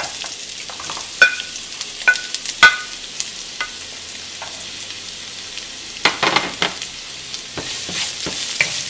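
Chopped onion frying and sizzling in hot coconut oil in a nonstick pan, with a wooden spatula knocking and scraping against the pan as it is stirred. The knocks ring briefly, a few near the start and a cluster of knocks and scrapes past the middle.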